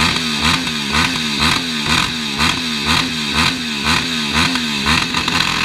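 Ducati Diavel's L-twin engine blipped repeatedly while the bike stands still, about two quick revs a second, each rising and falling in pitch.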